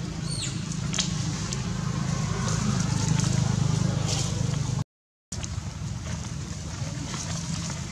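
A steady low rumble, like a motor running in the background, with a few faint clicks; the sound cuts out completely for about half a second around five seconds in.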